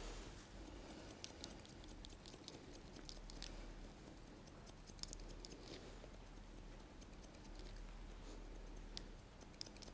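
Hairdressing scissors snipping short hair: faint, quick, irregular clicks throughout.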